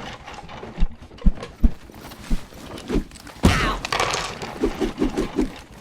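Cartoon sound effects of rummaging through a pile of objects: several soft thuds, then a louder clatter about three and a half seconds in, followed by a quick run of short taps.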